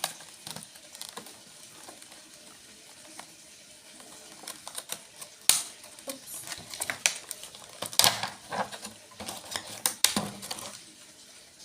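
Handling and unwrapping a hot glue gun and its plastic packaging: irregular clicks, taps and light rustling, with sharper knocks about five and a half, eight and ten seconds in.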